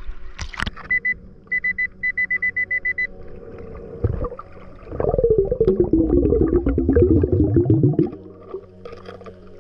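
Underwater metal detector signalling a target: a string of short, same-pitched beeps about a second in that quicken to about eight rapid beeps. Then, about five seconds in, a loud bubbling gurgle of exhaled air underwater for about three seconds.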